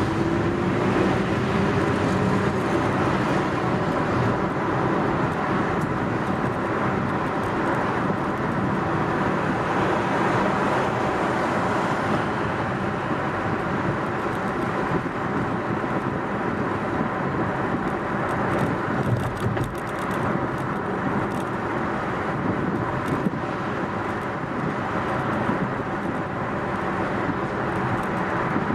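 A car driving along a city road: steady tyre and engine noise, with the engine note rising over the first couple of seconds as it picks up speed.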